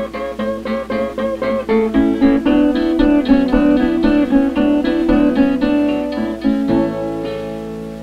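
Acoustic guitar playing the closing bars of a 1933 country blues 78 rpm record: a run of quick picked notes, then a final chord about seven seconds in, left ringing.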